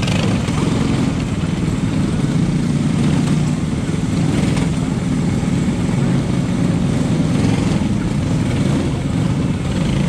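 Racing kart's small engine idling steadily, picked up by a camera mounted on the kart's body.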